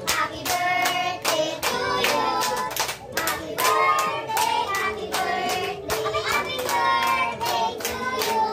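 A small group singing a birthday song together while clapping in time, about three claps a second.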